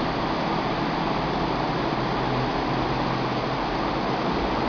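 Steady background hiss with a low hum underneath, unchanging throughout, like a fan or air-conditioning unit running.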